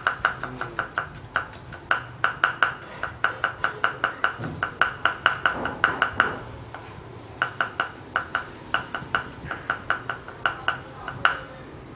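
A cleaver chopping garlic on a thick round wooden chopping block: rapid, even knocks of the blade on the wood, several a second. There is a short pause a little past halfway, then the chopping resumes.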